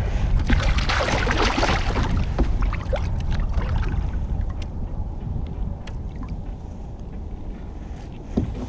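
Wind rumbling steadily on the microphone, with a louder rush of noise in the first two seconds or so, then a few faint scattered clicks.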